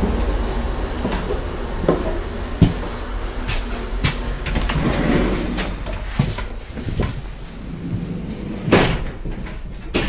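Low steady rumble of a DR1B diesel train standing with its engine running, with scattered knocks and clunks of doors and footsteps as someone climbs aboard and goes through the vestibule into the carriage; the sharpest knock comes about two and a half seconds in.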